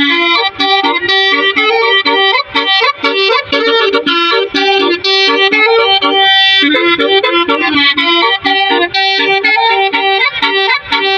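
Music: a fast, bright melody of quickly changing notes over a recurring held note.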